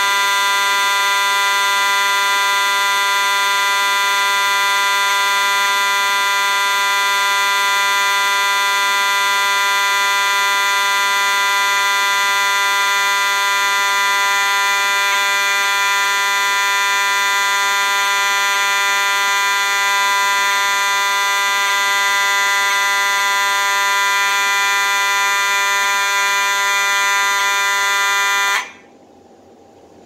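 Simplex fire alarm horn sounding one steady, unbroken tone rich in overtones, which cuts off suddenly about a second and a half before the end.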